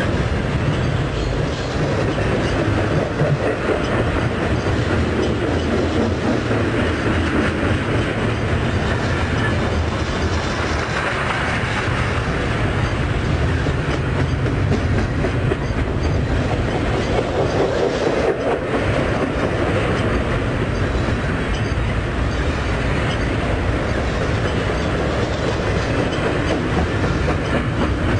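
Train rolling past, its wheels clattering steadily over the rails.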